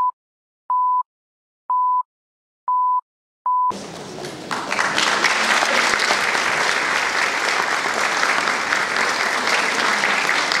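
Five short, even, high-pitched beeps about once a second, then an audience in a hall breaks into steady applause that builds to full strength about a second later.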